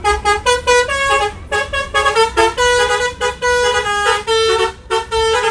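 Indonesian bus 'telolet' multi-tone horn playing a melody: a quick run of short honked notes at changing pitches, with a few longer held notes.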